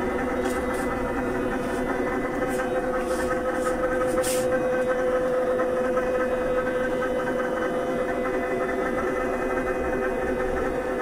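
Electric vibration-therapy machine running steadily under a patient lying on it: a continuous motor hum with one strong steady tone, and a few faint ticks in the first few seconds.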